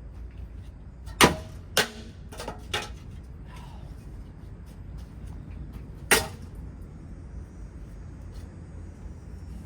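Sharp blows as ceiling fan parts are smashed: four quick strikes in the first three seconds, the first the loudest, then one more loud strike about six seconds in, over a low steady rumble.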